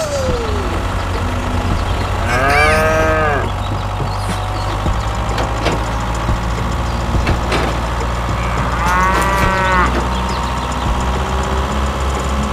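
A cow mooing twice, two long calls about six seconds apart, over a steady low engine hum.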